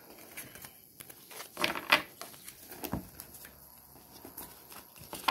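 A tarot deck being shuffled by hand: soft, irregular rustles and card clicks, with a louder flurry about two seconds in.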